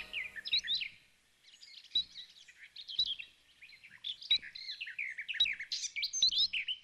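Small birds chirping and twittering busily, many short quick notes overlapping.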